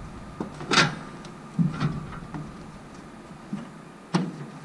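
Work boots stepping and hands grabbing on a pontoon boat's metal railing and step while someone climbs aboard: a handful of separate clunks and knocks, the loudest about a second in and another near the end.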